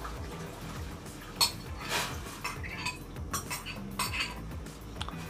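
Metal spoon scraping and clinking in a glass bowl as soaked agar-agar strands are pushed out into a pot of boiling water; several sharp clinks spread through the scraping.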